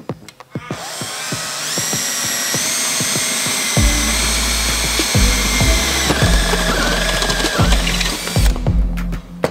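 Cordless drill with a step drill bit boring through a metal bracket held in a vise. Its whine climbs in pitch as it spins up, runs on steadily, and cuts off about a second before the end.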